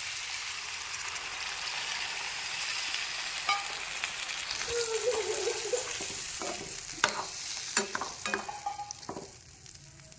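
Pig tail pieces sizzling in hot oil in a pan, the sizzle at its loudest in the first few seconds after water is added and then dying down. From about halfway on, a utensil clicks and scrapes against the pan as the meat is stirred.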